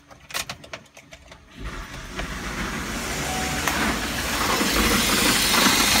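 A few handling clicks, then about a second and a half in the 2009 GMC Yukon Hybrid's 6.0-litre V8 starts and runs, growing steadily louder. It is running rough with a misfire on cylinder 7, which the owner puts down to a failed active fuel management lifter.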